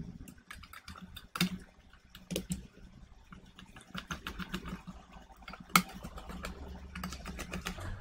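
Irregular small clicks and taps of a Mac Mini's plastic cooling fan assembly being handled and seated back into the case, with a few sharper knocks, the loudest about six seconds in.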